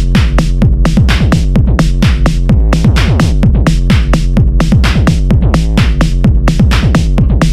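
Electronic background music with a steady beat of about four strokes a second over deep, sustained bass notes.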